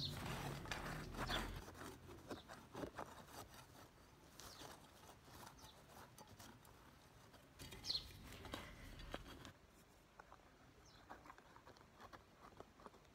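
A small wooden-handled hand digging tool scraping and prying in soil, with crackling and rustling of dry garlic leaves and stems as the bulbs are worked loose. Faint, irregular scrapes and clicks, busier in the first couple of seconds and again about eight seconds in.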